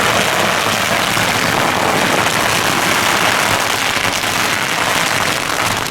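A long string of firecrackers going off in a dense, continuous crackle, stopping abruptly near the end.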